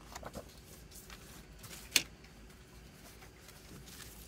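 Hands handling a plastic CD jewel case: a few light clicks and taps, then one sharp plastic click about two seconds in, with faint handling noise as the paper booklet is taken out.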